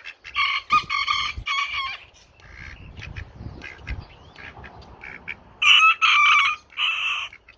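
A rooster crowing twice: a cock-a-doodle-doo about half a second in, and a second, louder one near the end.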